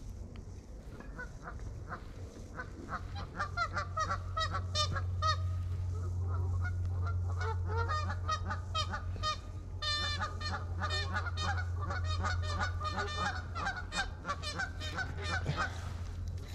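A flock of geese honking, many calls overlapping. The calls start about a second in and grow busier, over a steady low hum.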